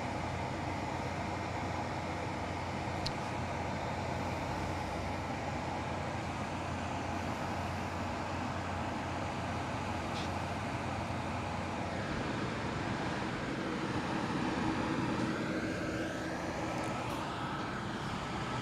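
Steady engine rumble of construction-site machinery, with a passing engine sound that swells and fades about three-quarters of the way through.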